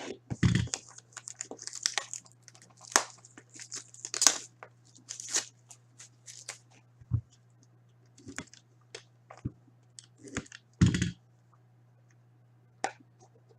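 Wrapping on a sealed box of hockey trading cards being torn open and crinkled: a run of short, irregular rips and rustles, with a few louder bumps from handling the box.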